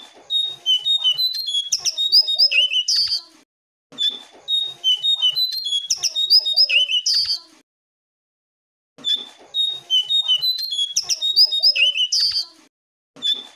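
Lesser shortwing (jongkangan, cingcoang coklat) singing. The song comes as phrases of rapid, high twittering notes, each about three and a half seconds long, repeated with short pauses between them.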